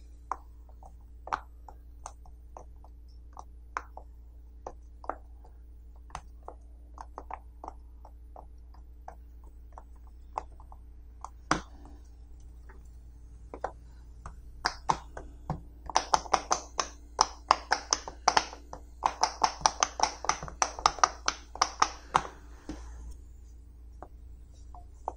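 Silicone pop-it fidget toy, its bubbles pressed through one by one by fingers: short sharp pops, scattered and irregular at first, then a quick run of about four pops a second lasting some six seconds in the second half.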